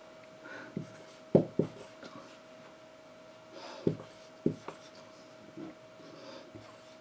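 A few short soft taps and rubbing sounds, two of them in quick pairs, over a faint steady hum.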